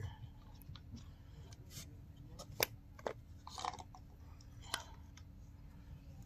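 Scattered clicks, taps and a short scrape of airless paint sprayer pump parts being handled and set down on brick. The sharpest click comes about two and a half seconds in.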